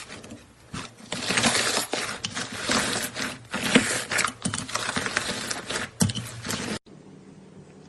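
Slime being squeezed and worked by hand: dense crackling, clicky pops and squelches in irregular bursts. It cuts off suddenly near the end, leaving a faint steady hum with light ticks.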